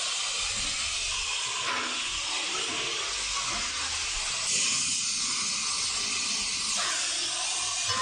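Gas welding torch flame hissing steadily as it heats joints on a steel-tube frame, a little louder about halfway through.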